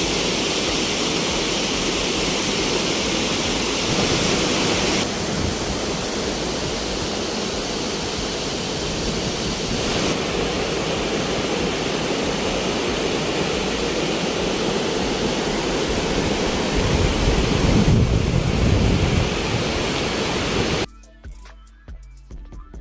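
Steady roar of rushing water from Thompson Falls, heard over a few clips joined with abrupt changes in tone. About 21 seconds in it gives way to quiet background music.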